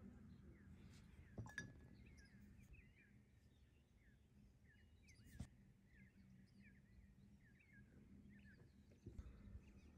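Faint small birds chirping, many short quick chirps over a steady low hum, with two sharp clicks, about a second and a half and five and a half seconds in.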